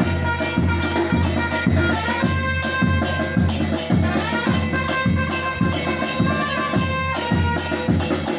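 Batucada percussion groove: steady deep drum beats with regular snare and shaker strokes on top, and held melodic notes running over the drums.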